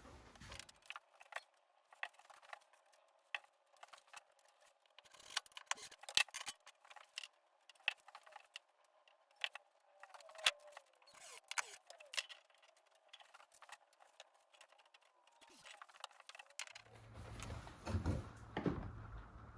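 Irregular small clicks, taps and clinks of hand tools being handled and hung on a workshop tool wall. About seventeen seconds in, a steady rush of heavy rain on the roof with a low hum comes in.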